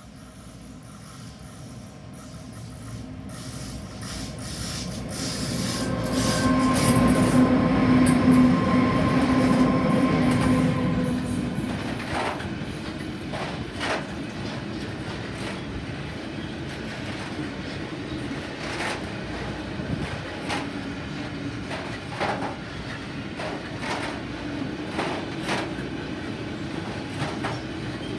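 An iron ore freight train hauled by two Class 189 electric locomotives approaches and passes close by. The sound grows from faint to its loudest about seven to ten seconds in as the locomotives go by, with a steady hum. Then the long string of ore hopper wagons rolls past with a steady rumble and repeated wheel clacks over the rail joints.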